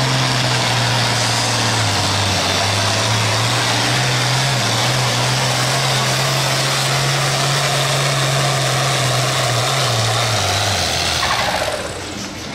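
Diesel engine of an International Harvester hot stock pulling tractor running flat out under load as it drags the weight-transfer sled. The engine note sags about two seconds in and comes back up, then falls away and the sound drops off near the end as the pull finishes.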